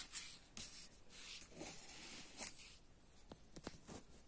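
Faint rustling and swishing of notebook paper being handled and slid into position, with a few light clicks near the end.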